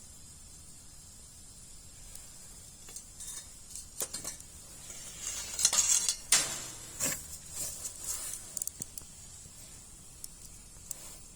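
Wood fire burning with a steady faint hiss, crackling and popping, with a cluster of sharp knocks and clinks from about three to nine seconds in, loudest around six to seven seconds.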